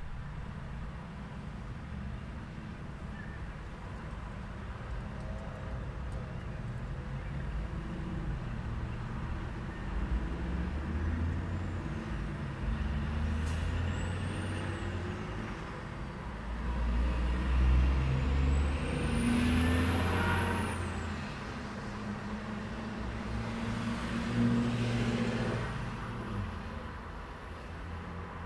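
Town intersection traffic: cars and heavy trucks running and pulling through, with a steady engine rumble and two louder passes, one about two-thirds of the way in and one near the end. A thin high squeal rises and falls a few times.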